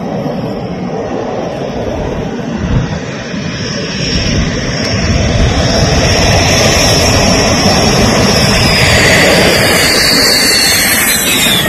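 Dassault Rafale fighter's twin turbofan jet engines growing louder as it comes in low over the runway to land. A high whine slides down in pitch near the end as the jet passes close by.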